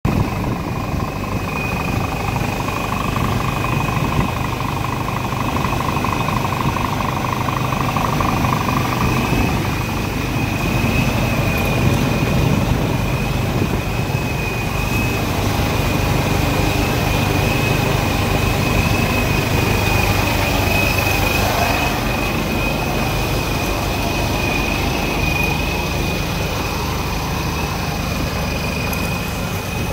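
Scania R410 truck's 13-litre straight-six diesel idling steadily, a continuous low hum with a thin high whine above it.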